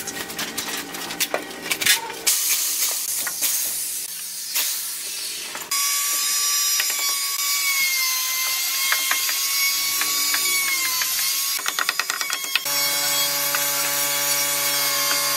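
Small power tool motor running steadily in several spells, with a whine that shifts in pitch between spells. Clicking and ratcheting come at the start.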